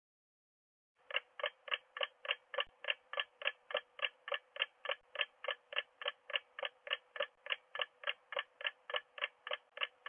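Ticking-clock countdown timer sound effect: sharp, evenly spaced ticks, about three and a half a second, starting about a second in.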